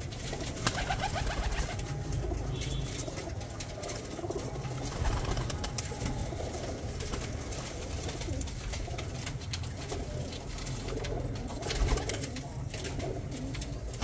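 Teddy pigeons cooing in a loft, with scattered short clicks throughout.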